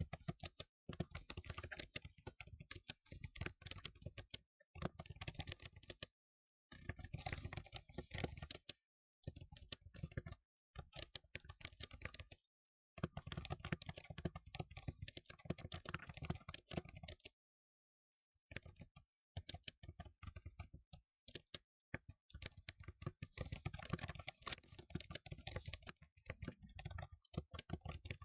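Fast typing on a keyboard, dense runs of key clicks lasting a few seconds each, broken by short pauses.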